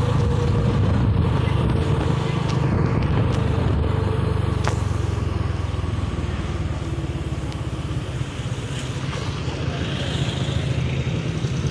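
Motorcycle engine running as it rides along a road, its note easing slightly lower over the first few seconds, under heavy wind rumble on the microphone.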